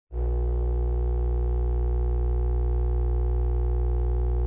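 A steady electronic drone: a low hum with a stack of held tones above it, starting suddenly at the very beginning and holding an even level.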